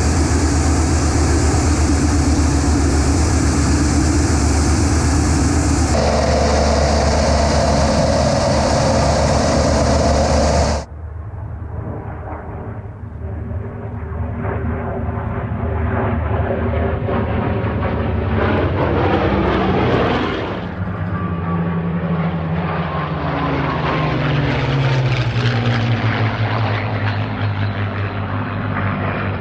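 Piston-engined propeller warbird heard from inside its cockpit, a loud steady engine and slipstream noise. About a third of the way in it cuts to piston fighters, a P-38 Lightning and an F4U Corsair among them, flying past outside, their engine note climbing and then dropping as they pass, twice.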